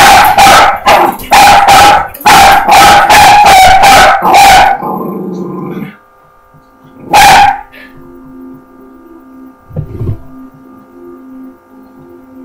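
Border terrier barking loudly at a cat, in rapid barks about three a second for the first five seconds, then after a pause one more single bark about seven seconds in.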